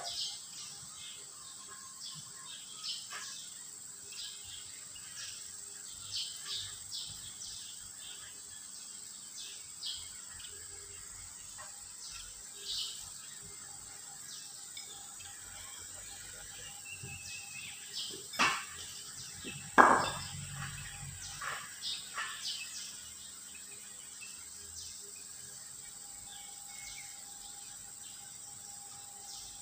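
Scattered clicks and knocks of hand tools on an engine being overhauled, with two louder knocks about two-thirds of the way through, over a steady high buzz of insects.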